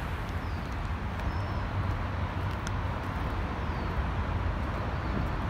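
Skateboard wheels rolling steadily over rough asphalt: a continuous low rumble with a grainy hiss above it.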